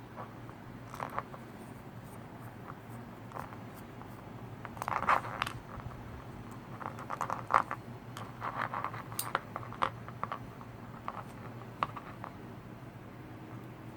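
Irregular small clicks and short scrapes of hand tools and tiny parts being handled while a brushed micro quadcopter is taken apart, with a steady low hum underneath.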